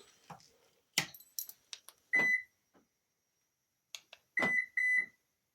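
2024 Subaru Forester locked and unlocked with the key fob: door lock actuators click, then the answer-back gives one short high beep for lock. A few seconds later come more clicks and two short beeps for unlock.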